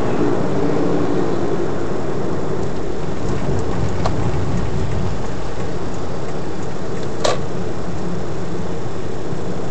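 Steady road and engine noise of a moving car, heard inside the cabin. A faint click comes about four seconds in and a sharper click about seven seconds in.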